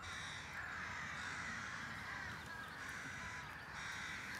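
Many birds calling at once, a steady chorus of overlapping cries.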